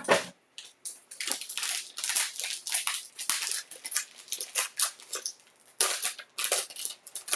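A trading-card box being opened: irregular crinkling and tearing of plastic and cardboard packaging, with a sharp knock right at the start.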